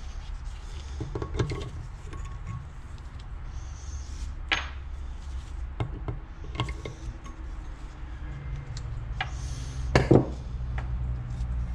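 Metal tools and parts clinking against a Yamaha YZ250F cylinder head while a valve spring cap is worked out of it: scattered light clinks, a louder clank about four and a half seconds in, and two sharp knocks close together near the end.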